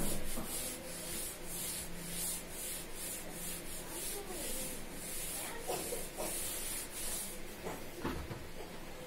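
Blackboard duster wiping chalk off a blackboard in quick back-and-forth strokes, a rhythmic scrubbing at about two or three strokes a second that stops about seven and a half seconds in. A dull knock follows near the end.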